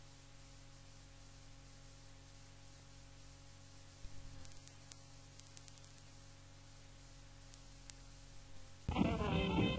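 Cassette tape hiss with a steady mains hum and a few faint clicks. Near the end a swing big band with brass starts up.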